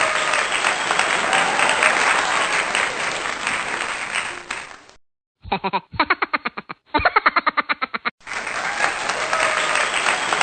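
Crowd applause and cheering that fades out about five seconds in. After a short gap comes a quick run of short repeated pulses lasting nearly three seconds. Then the applause starts again abruptly.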